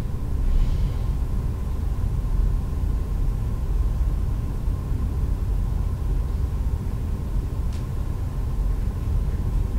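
Steady low room rumble with a faint steady high tone running through it, and one faint click near the end.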